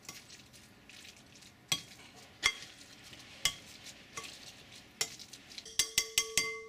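Metal potato masher mashing avocado in a ceramic mixing bowl: a soft mashing noise with a clink of metal on the bowl about every second. Near the end comes a quick run of knocks that set the bowl ringing.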